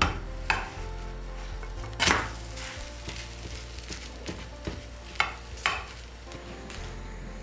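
A handful of sharp clinks and knocks, with one louder scrape about two seconds in, as of utensils against a pot or dishes in a kitchen, over soft background music.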